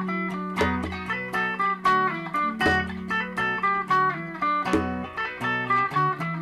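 Instrumental music on plucked guitar, a quick run of picked notes over low sustained bass notes.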